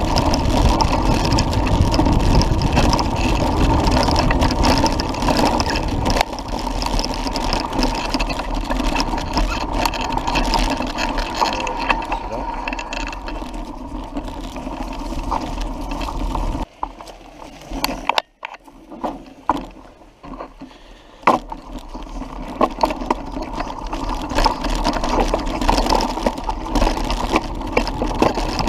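Mountain bike rolling fast over a dirt forest trail, heard from a camera on the rider or bike: steady wind noise and tyre rumble with rattles and knocks over bumps. It drops away for a few seconds past the middle, with scattered clicks, then builds again.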